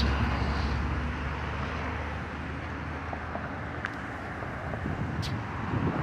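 Road traffic: a passing vehicle's low rumble fading away over the first few seconds, with two brief high ticks later on.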